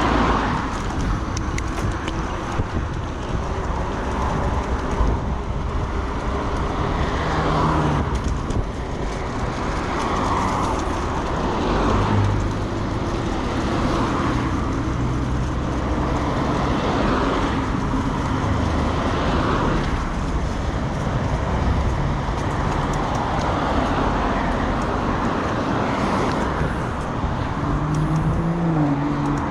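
A cyclist breathing hard while riding a mountain bike uphill, a noisy breath every couple of seconds, over a steady rumble of road traffic.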